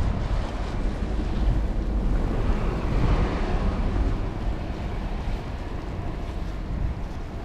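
Wind buffeting the microphone in a snowstorm: a steady, low, rumbling rush of noise that swells for a while in the middle.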